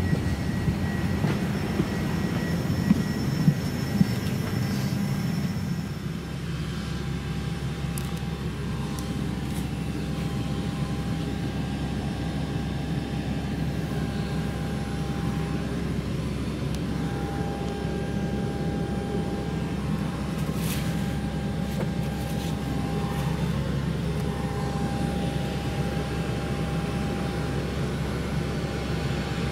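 Steady droning hum inside the cabin of a parked Boeing 787-8, the sound of the airliner's air-conditioning and ventilation running. A few light knocks come in the first few seconds, and the hum drops a little about six seconds in.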